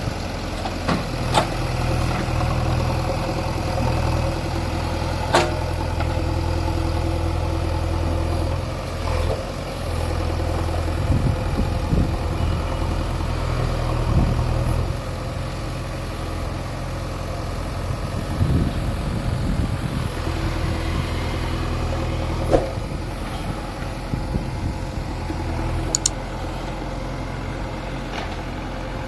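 JCB backhoe loader's diesel engine running steadily, with a few sharp knocks.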